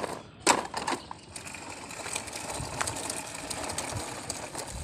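A couple of plastic knocks as a toy is set into a toy truck's bed, then a steady rattle of plastic toy wheels rolling over asphalt as a chain of toy vehicles is pulled along by a strap.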